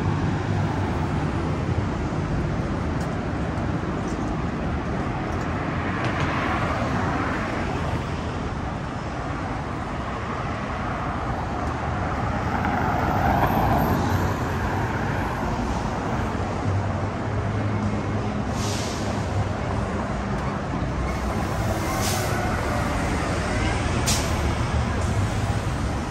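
Street traffic on a wide multi-lane road: cars and a pickup truck pass over a steady low rumble. The loudest pass is about halfway through. In the last third come three short hisses from a bus's air brakes.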